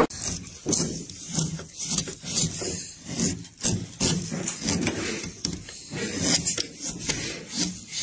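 Repeated hand-tool strokes rubbing and scraping across wood, about two a second.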